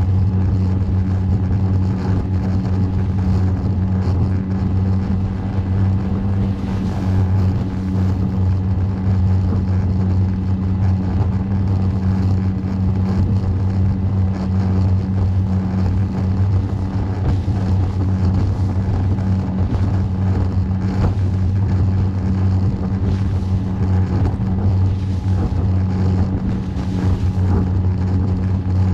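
Small boat's engine running steadily under way, a constant low hum with the rush of water and wind over it.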